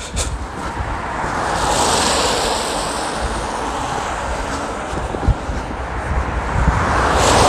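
Road traffic on a wet road: tyre hiss that swells as a car passes about two seconds in and again near the end, over a steady low wind rumble on the microphone.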